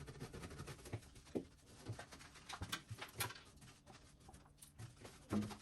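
Faint, scattered clicks, small knocks and rubbing from hand-cleaning the inside of a fridge with a wet cloth and warm water.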